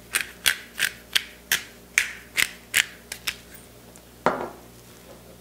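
Hand-twisted pepper grinder cracking peppercorns: about a dozen crisp clicks, roughly three a second, then one louder knock about four seconds in.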